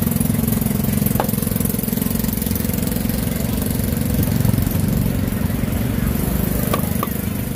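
A small engine idling steadily as a low rumble. A cleaver knocks on a wooden chopping block about a second in and twice near the end, cutting roast duck.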